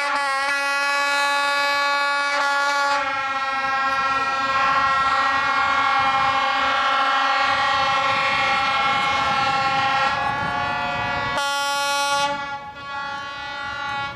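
A Bardotka diesel locomotive's horn holds one long, loud, steady note. The diesel engine and running gear of the moving locomotives rumble underneath it from about three seconds in. The horn fades off about twelve seconds in.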